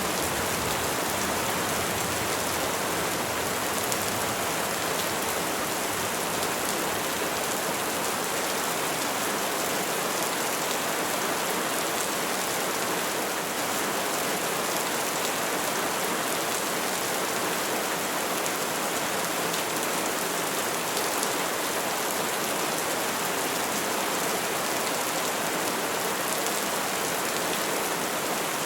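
Steady rainfall pattering on trees and leaves, an even hiss with no thunder.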